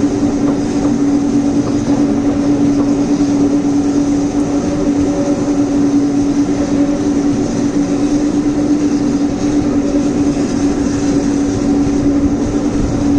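Steam-hauled passenger train running steadily along the line: a continuous rumble of the train in motion with a constant drone.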